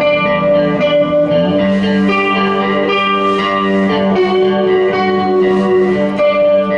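Live band music led by guitar: held, ringing chords with lighter picked notes above, the chord shifting about a second and a half in and again near the middle.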